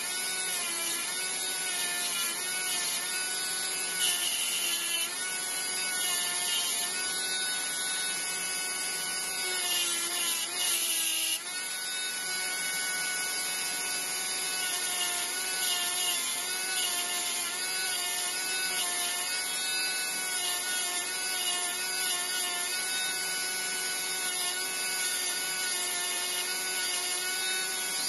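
Small Dremel-type rotary tool running with a thin cutting disc, grinding the edge of a jasper pebble ring to shape. Its steady motor whine wavers slightly in pitch as the stone is pressed on and eased off, and briefly dips about eleven seconds in.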